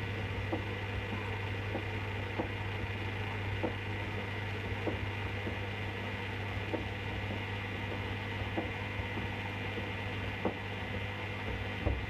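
Hoover WDYN 11746 PG8 washer-dryer drum turning slowly through a rinse: a steady hum from the inverter motor, with light knocks about once a second as the wet load of rugs and shoes tumbles.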